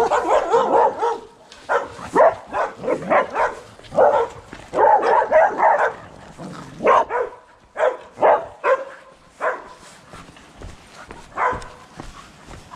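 A dog barking in quick, repeated runs, then single barks more spaced out in the second half, with a last bark near the end.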